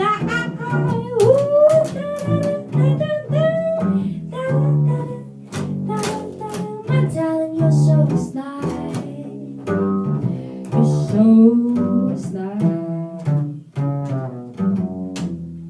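Upbeat band music led by a double bass playing a plucked bass line, with a melody gliding above it; the music fades near the end.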